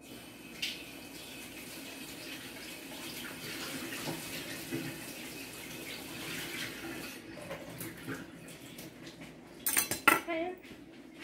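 Kitchen tap running in a steady stream for about seven seconds, then a few loud clatters of a pot and its glass lid near the end.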